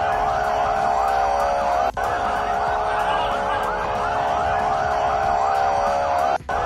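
Ambulance sirens wailing in fast rising-and-falling cycles over a steady blaring tone, with street and traffic noise beneath. The sound breaks off for an instant about two seconds in.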